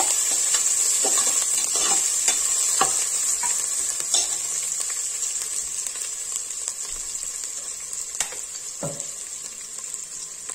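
Crushed ginger and garlic frying in hot oil in a pressure cooker, a steady sizzle that grows gradually quieter. A metal slotted spatula scrapes and taps against the pot, mostly in the first few seconds, with a couple more taps near the end.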